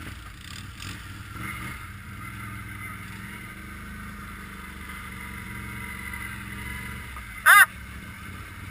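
ATV engines idling and running at low speed, a steady low drone with a faint steady whine above it. About seven and a half seconds in there is one short, loud, high-pitched call.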